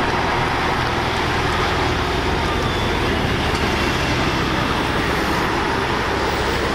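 Scania semi-truck hauling a shipping container driving past, its diesel engine running with steady road noise and a low hum.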